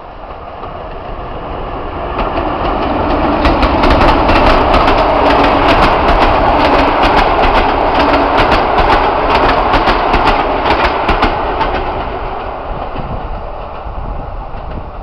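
Passenger train hauled by an electric locomotive passing close by. It grows louder, with a rapid clatter of wheels over rail joints for several seconds at the peak, then fades as it recedes.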